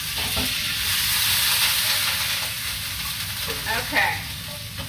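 Water from a kitchen faucet running and splashing onto a frying pan being rinsed in a stainless-steel sink, a steady hiss.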